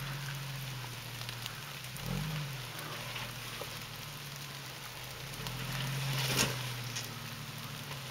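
A four-wheel-drive vehicle's engine running at low revs, with a short rise in pitch about two seconds in and a swell around six seconds, over a steady crackling hiss.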